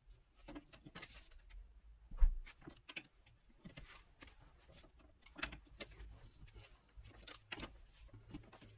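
Irregular clicks, clinks and knocks of hand tools and metal parts during suspension work, with one louder knock about two seconds in.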